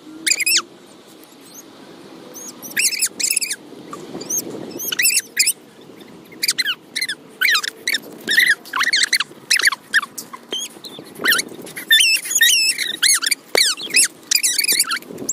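A run of short, high-pitched squeaks, each a quick up-and-down chirp, coming in irregular clusters of about two to three a second with brief pauses between.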